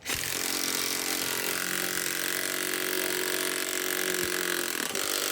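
Impact gun running steadily for about five seconds, tightening a lug nut, then stopping suddenly near the end.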